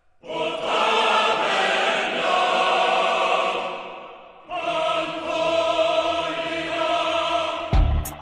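Choir music: two long held chords, the second starting about four and a half seconds in. Near the end, the first hits of a drum beat come in.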